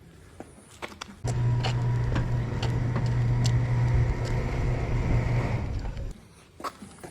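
A motor starts abruptly about a second in, runs steadily with a low hum for about four and a half seconds, then stops. Light clicks and knocks come before and after it.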